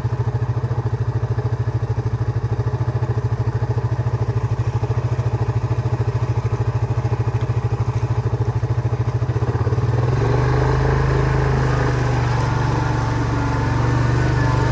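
Yamaha Grizzly 700 ATV's single-cylinder four-stroke engine running at low speed with a rapid pulsing beat. About ten seconds in it picks up throttle and runs smoother and a little louder.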